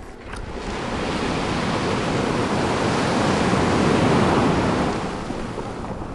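A rushing, surf-like wash that swells over about four seconds and then eases off, standing for a whale's belly scraping against the sand as it comes ashore.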